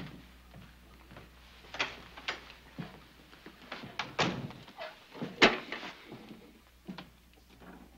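A handful of separate knocks and thuds, the loudest about five and a half seconds in, over a low steady hum.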